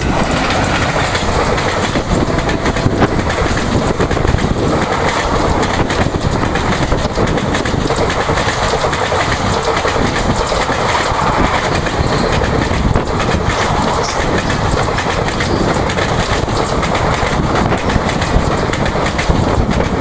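Express train passing at full speed close by: the WAP-4 electric locomotive rushes in suddenly at the start, then a long rake of ICF coaches keeps up a loud, steady rumble with rapid clicking and clatter of wheels over the track.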